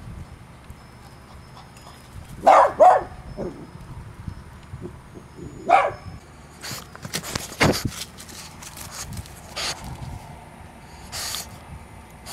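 Puppy barking: two quick barks about two and a half seconds in and a third near six seconds, followed by scattered knocks and rustling.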